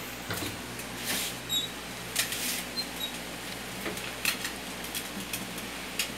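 Scattered light clicks and short scratchy rustles from kittens moving about in a wire cage on a plastic floor mat, over a steady low hum.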